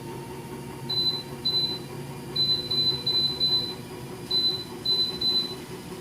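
Electronic beeps from a vibration plate's control panel as its buttons are pressed: about a dozen short, high beeps, some singly and some in quick runs, over a steady low hum.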